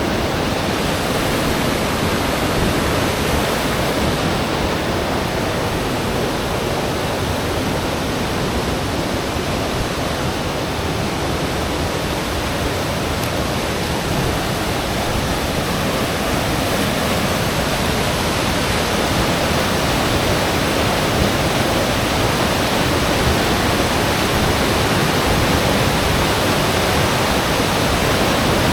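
Loud, steady rush of flowing water, an even roar with no breaks, growing slightly louder near the end.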